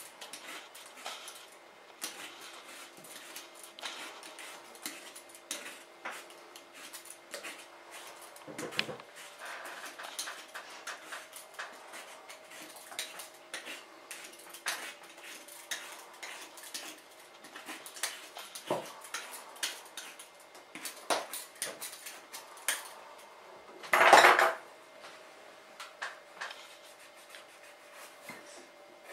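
A vegetable peeler scraping the brown skin off a shelled coconut's white meat: a long run of short, rasping strokes. One brief, louder noise about three-quarters of the way through.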